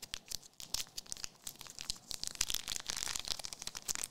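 Crinkling and crackling of plastic trading card pack wrappers and cards being handled, a run of small irregular crackles.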